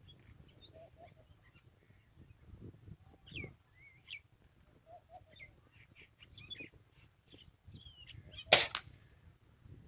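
Small birds chirping faintly in short, scattered calls, then a single sharp shot about eight and a half seconds in from a Diana 34 Classic break-barrel spring-piston air rifle.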